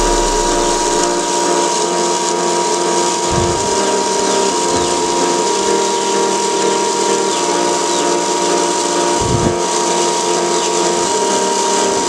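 Small DC motor of a homemade plastic-bottle vacuum cleaner running steadily with a high whine, sucking up bits of paper. Two short low bumps come about a third of the way in and again near the end.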